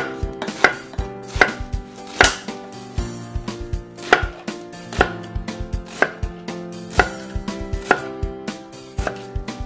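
Chef's knife slicing an onion on a wooden cutting board: a quick, uneven run of sharp knife strikes on the board, a few each second.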